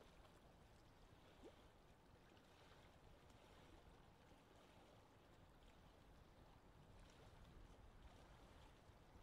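Faint, steady wash of lake water and gentle wind, with a brief faint blip about a second and a half in.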